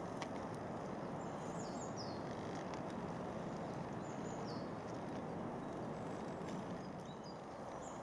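Willow tits giving short, high, thin falling call notes: a few in quick succession in the first two seconds, another around the middle and several more near the end. A steady background hiss runs under them.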